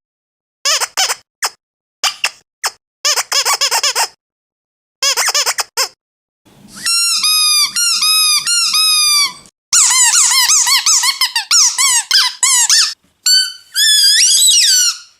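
Dog squeaky toys being squeezed: short groups of squeaks with gaps between them, then longer runs of quick, evenly repeated squeaks, each one bending in pitch. Near the end comes a longer squeal that rises and falls.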